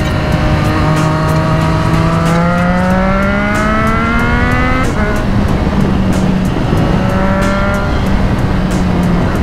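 Triumph Street Triple RS 765 cc three-cylinder engine through a Yoshimura Alpha T exhaust, pulling up through the revs for about four seconds, then the revs drop sharply and hold steady before rising briefly again near the end. Heavy wind noise on the microphone runs under it.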